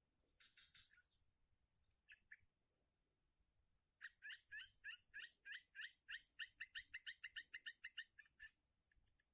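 A bird calling faintly: a few short chirps, then a fast run of about twenty rising chirps, several a second, from about four seconds in until shortly before the end.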